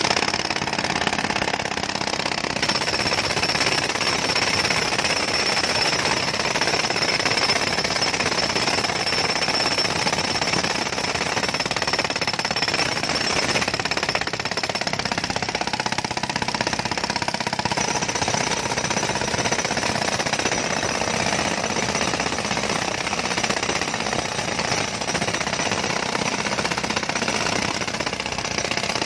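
Jackhammer (road breaker) hammering continuously into a road surface, a rapid, steady, loud chatter without pause.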